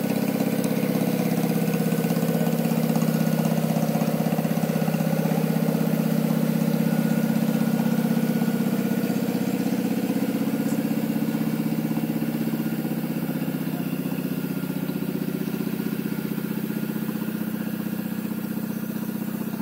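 Riding lawn tractor's small engine running steadily as it drives by towing a bike trailer, then getting quieter in the second half as it moves away.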